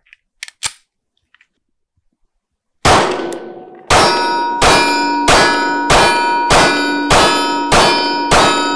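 Springfield Hellcat Pro 9mm pistol firing a string of about nine shots, starting about three seconds in and then coming roughly every two-thirds of a second. Each shot is followed by a metallic ring, as from a steel target. The cheap ammunition feeds through without a stoppage.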